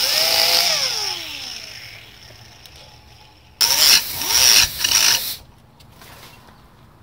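Pneumatic cutoff wheel cutting steel guy-wire strand: a loud burst of grinding and air hiss that winds down in a falling whine over the first second or two, then two more short bursts around four and five seconds in.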